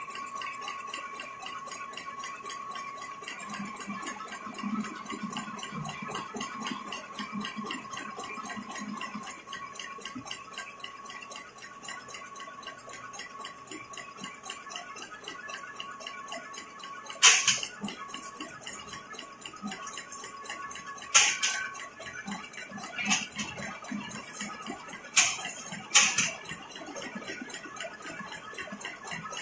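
Automatic agarbatti (incense stick) making machine running, its feed and extruding mechanism clicking fast and evenly, with a steady whine through the first two thirds. Five sharp metallic knocks come in the second half.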